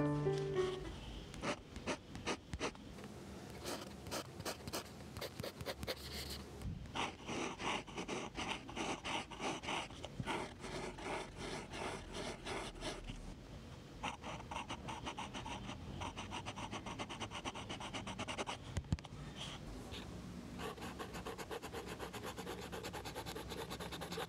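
Steel Pilot italic fountain-pen nib writing on notebook paper, picked up very close by a lapel mic lying on the page: a run of short scratching pen strokes, quicker and more even in the last third as it writes a row of looped letters. The nib has been smoothed; the scratchy sound comes from the close microphone, not the nib.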